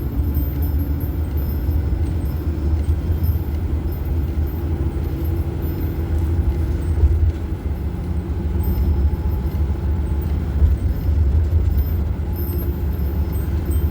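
Steady low rumble of engine and tyre noise inside a moving vehicle's cabin while driving.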